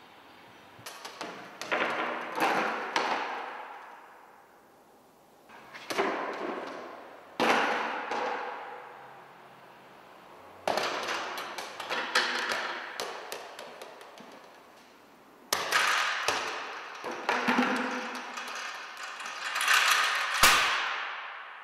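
Hollow plastic and metal objects knocking and clattering in four separate bursts, each dying away with echo in a large bare room: a plastic bucket holding a tennis ball rocking and tipping over, and aluminium stepladders and a board shifting and falling. A heavier thud comes near the end.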